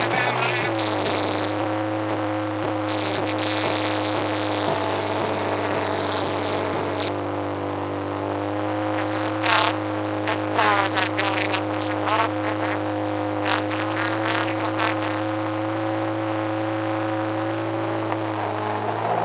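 Motorboat engine running at a steady pitch, easing down slightly about half a second in. Partway through, a run of short sharp splashes of water against the hull.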